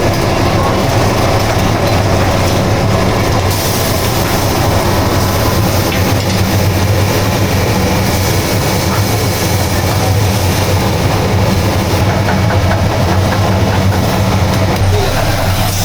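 Steady, loud rumbling noise with a strong low hum, even throughout and without clear separate events.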